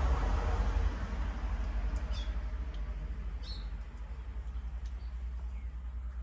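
Newborn puppies squeaking while suckling: a couple of short, high squeaks about two and three and a half seconds in, over a steady low rumble.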